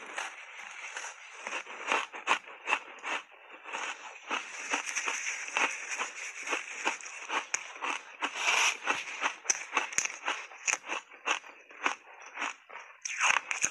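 Ice coated in matcha powder being bitten and chewed close to the microphone: a rapid run of sharp crunches and cracks, several a second, with a louder crunching stretch about two-thirds of the way through.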